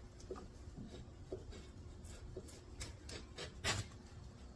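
Sharp knife trimming leather along the edge of a wooden vise jaw: faint, irregular scratching and small clicks, with one louder knock about three quarters of the way through.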